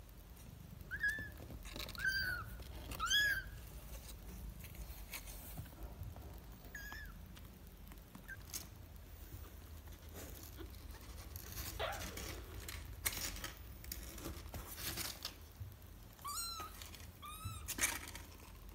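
Kittens mewing in short, high calls, three close together in the first few seconds and a few more near the end. In between come scratching and rustling sounds of the kittens' paws on cardboard.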